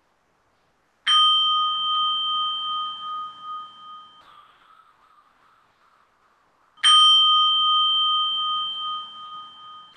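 A bell or chime struck twice, about six seconds apart, each strike a clear ringing tone with several high overtones that rings for about three seconds and then cuts off abruptly.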